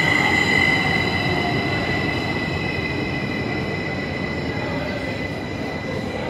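SBB regional electric train at the platform giving a steady high-pitched squeal made of several tones over a rumbling noise, slowly fading.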